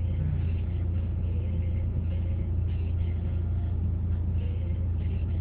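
Steady low drone of a car heard from inside its cabin.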